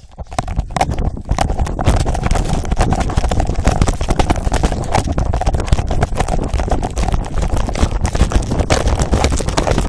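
Rubbing and knocking against a phone microphone duct-taped to a moving Rhodesian ridgeback's collar: a dense, fast clatter over a low rumble, getting louder about a second in and then steady.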